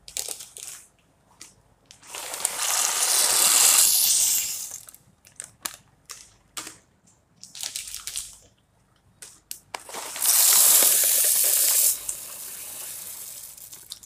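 Water in a pot of macaroni on the stove: two loud rushes of water noise, each two to three seconds long and stopping abruptly, with scattered clicks and knocks between them, then a steadier, quieter bubbling of the boiling pot near the end.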